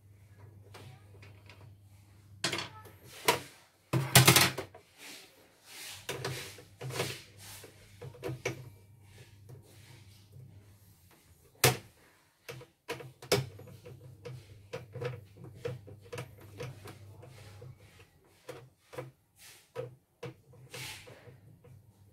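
Screwdriver and hands working on the plastic housing of a CNY portable embroidery machine: scattered clicks, knocks and plastic rattles as the side cover's screws are undone and the cover is taken off. There is a loud cluster of knocks about four seconds in and a sharp single knock about halfway through.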